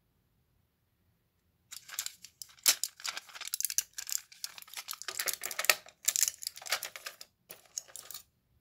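Foil-backed plastic blister pack crinkling and crackling as it is squeezed and a tablet is pushed out through the foil. The crackles start about two seconds in and come in quick clusters until shortly before the end.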